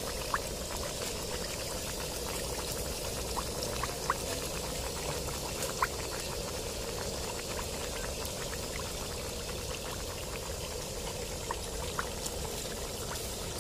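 Whole chicken deep-frying in a wok of hot oil: a steady sizzle with scattered small pops and spits.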